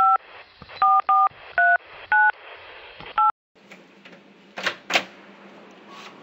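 Phone keypad dial tones as a number is dialled: six short two-note touch-tone beeps at uneven intervals over about three seconds. After them comes a steady low hum, with two sharp clicks in quick succession.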